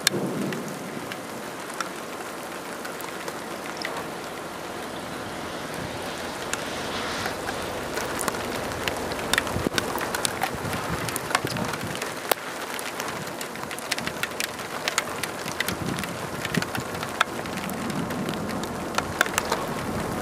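Steady rain noise with many sharp raindrop hits, which grow denser from about eight seconds in.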